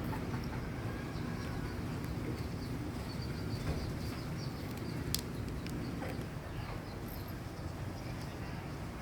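Outdoor rural background with a steady low rumble and faint bird chirps scattered throughout; a single sharp click about five seconds in.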